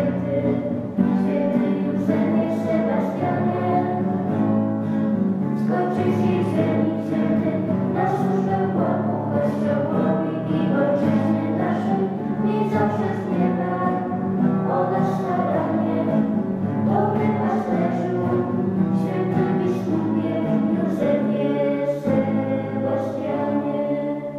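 Two girls and a man singing a Polish hymn-style song together, accompanied by a strummed acoustic guitar.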